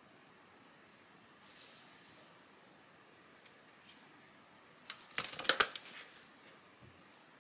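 Sugar pouring from a small bowl onto flour in a plastic mixing bowl, a brief soft hiss. About five seconds in, a plastic packet of cinnamon powder crinkles and crackles for about a second, the loudest sound.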